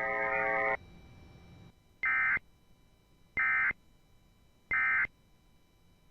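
Emergency Alert System end-of-message signal: three short, identical bursts of screeching digital data tones, about a second and a half apart, marking the end of the alert. A held tone stops just under a second before the first burst.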